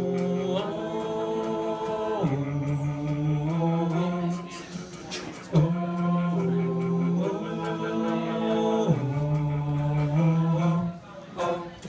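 A cappella vocal group singing wordless held chords over a sung bass line. The chords change every two seconds or so, with a short break about halfway through and another near the end.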